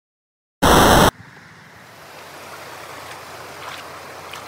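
About half a second in, a brief, very loud burst of noise starts and stops abruptly; it is the loudest thing here. After it, the Trinity River runs over a shallow, rocky riffle as a steady rush of water, with a few faint ticks.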